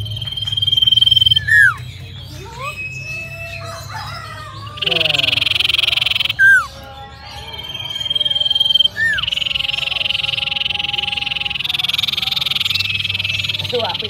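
Caged common iora (cipoh) singing: a held whistle, sharp down-slurred notes, and long buzzy trills, the last running through the final five seconds.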